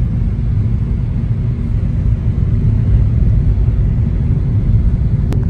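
Steady low rumble of a car driving along a road, heard from inside the cabin, with a single sharp click near the end.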